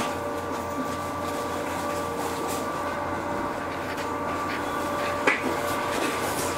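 Ainokaze Toyama Railway 413 series electric train heard from inside a car: a steady mechanical hum with constant whining tones over a low rumble, and a single sharp click about five seconds in.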